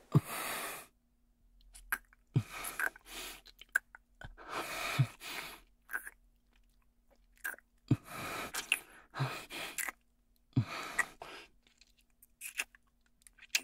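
Wet kissing sounds: sharp lip smacks, each followed by a short breath, repeating about every two seconds with small mouth clicks in between.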